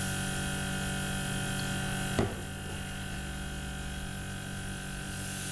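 A small airbrush makeup compressor running steadily with a hum and a hiss of air while water is flushed through the airbrush to clean it. A sharp click comes about two seconds in, after which the hiss eases until near the end.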